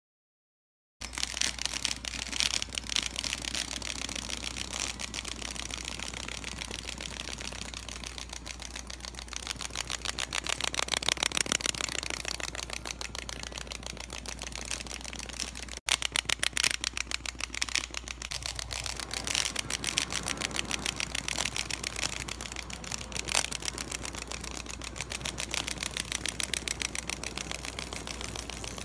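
Several clockwork wind-up toy chicks hopping, their spring-driven mechanisms making a fast, continuous clicking that rises and falls in loudness.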